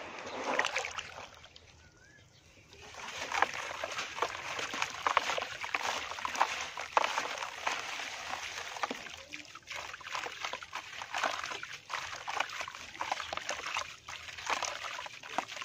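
Hands crumbling dry, dusty chunks of dirt into a basin of water: a dense crackle of breaking crumbs mixed with water sloshing and splashing, with a short lull about two seconds in.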